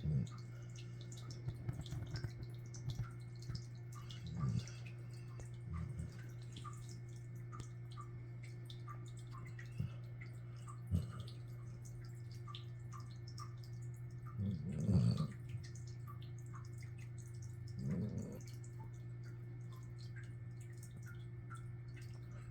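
A sleeping Brittany dog snoring softly, with many small clicks from its mouth and nose and a few louder snores, the strongest two about three seconds apart in the second half.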